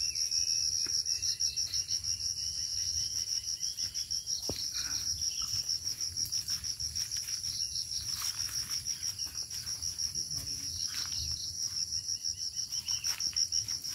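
Steady chorus of insects: a shrill, high-pitched trill pulsing rapidly and evenly, with a fainter, even higher band above it. A few soft rustles break in now and then.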